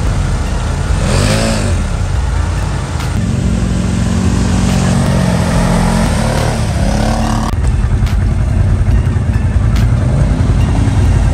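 ATV and side-by-side engines running and revving in mud. Pitch rises and falls about a second in, and the engine sound changes abruptly twice where the footage cuts between machines.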